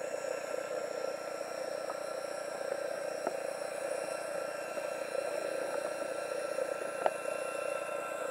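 Muffled, steady underwater noise picked up through a waterproof camera housing, with a few sharp clicks, the loudest about seven seconds in.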